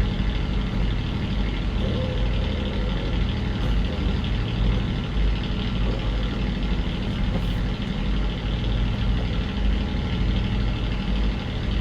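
A ship's engine running with a steady, even low hum.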